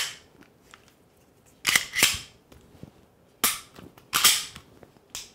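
Pistol slide and frame clacking as a ZEV OZ9 slide is seated on a Glock 17 factory frame and racked: about five sharp metallic snaps, two near two seconds in, one at about three and a half, and two more just after four seconds.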